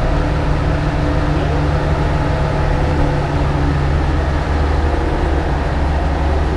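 Steady low hum of a cog railway train passing on the next track, its yellow biodiesel locomotive and coach rolling by slowly. The lowest part of the hum gets a little stronger about two-thirds of the way through.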